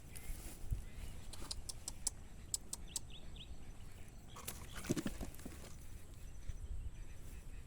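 Short, faint animal calls outdoors, a few chirps and one longer call about five seconds in, among scattered sharp clicks.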